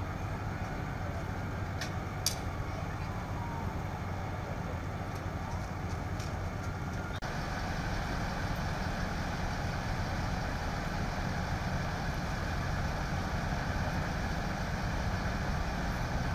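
Steady low rumble of idling vehicle engines, with two sharp clicks about two seconds in.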